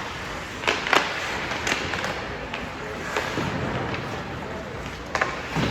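Sharp knocks from game play, two close together about a second in, one shortly after, and two more near the end, over a steady background din.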